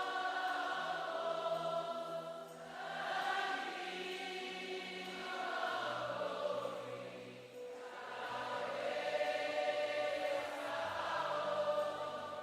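Women of a congregation singing a slow worship chant together in long held phrases that swell and fade about every five seconds, over a low steady musical accompaniment.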